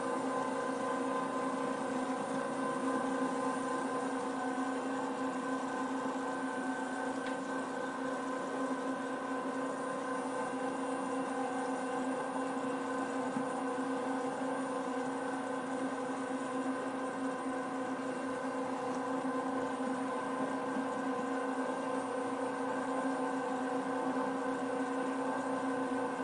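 AEX18 tabletop pasta extruder running with its rotary cutter switched on, extruding and cutting pasta: a steady electric motor hum with several held tones that stays even throughout.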